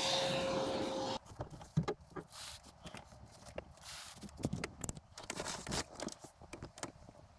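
Fabric curtains being drawn across camper-van windows: soft cloth rustling with scattered light clicks and taps. For about the first second a louder hiss with a steady tone sits under it, then cuts off suddenly.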